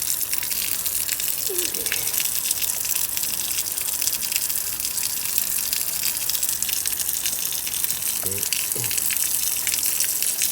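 Newly installed outdoor garden tap running with the pressure turned up, water gushing out steadily while the new pipework is tested for leaks.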